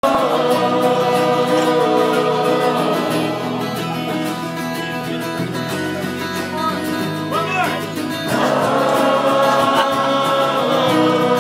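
Folk band playing live: acoustic guitar with several voices singing together in harmony, a little quieter in the middle and fuller again about eight seconds in.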